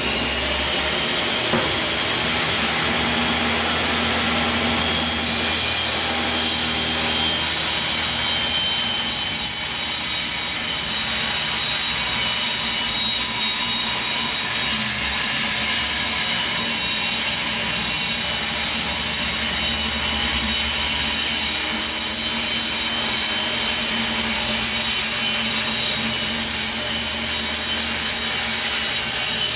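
Skilsaw table saw running steadily, at times cutting pre-glued pine panels.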